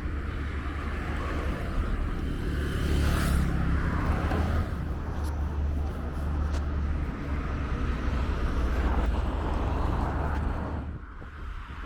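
Street traffic: a steady low rumble of passing vehicles, getting louder about three seconds in and easing off near the end.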